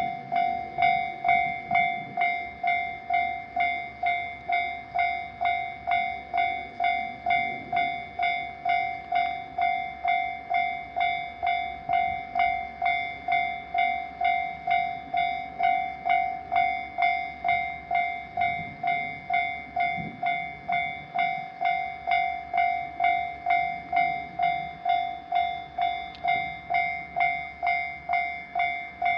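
Japanese railroad crossing warning bell ringing continuously, an electronic ding repeating about twice a second at an even pace.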